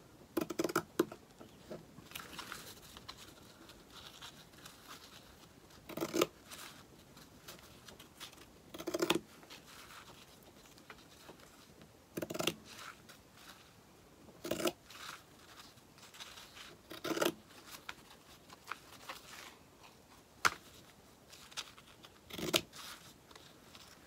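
Scissors snipping through layered cloth, cutting slits into the edge of a fabric flower to form petals; about nine short snips, one every two to three seconds.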